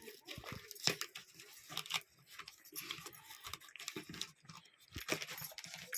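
Packaging of a new lavalier microphone being opened by hand: irregular rustling, crinkling and tearing with small clicks and knocks throughout.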